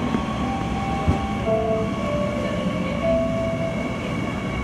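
Seoul Metro Line 9 9000-series electric train running, a steady rumble under a thin high tone. Several short squeals come from the running gear in the middle of the stretch, with a single knock about a second in.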